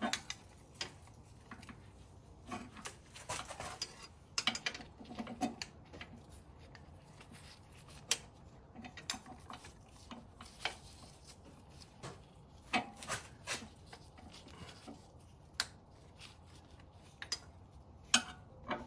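A metal spanner clinking and scraping against the 10 mm bolts of an automatic gearbox's oil pan, in scattered, irregular clicks and short rubs. The tool is slipping and being refitted on bolts half hidden behind the subframe.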